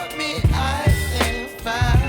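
Background pop song with sung vocals, bass and a steady drum beat.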